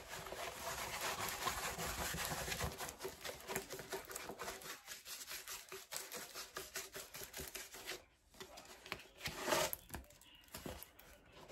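Rustling and crinkling of a rolled diamond painting canvas and its plastic cover being unrolled and flattened out by hand. It is busiest for the first several seconds, then quieter, with one short burst of rustling near the end.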